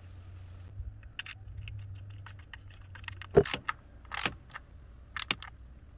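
Scattered light clicks and knocks from handling a 2008 Nissan Rogue's camshaft position sensor and its plastic wiring connector, the loudest a sharp knock about three and a half seconds in.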